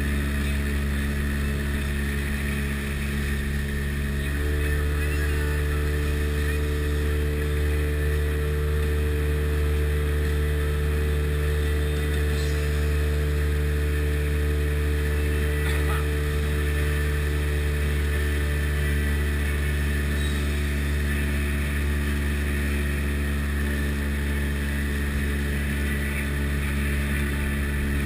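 Sea Ray Sea Rayder jet boat's two-stroke engine running steadily under way; about four seconds in its pitch steps up a little and then holds.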